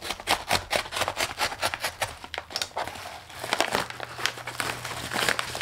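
Bubble-lined kraft-paper mailer being pulled open by hand: a dense run of sharp paper crinkles and crackles that thins out after about three seconds.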